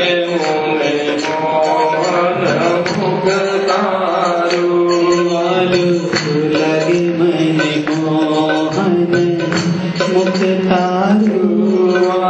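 Gujarati devotional kirtan: a hymn melody over a steady drone, with regular hand-drum strokes keeping the beat.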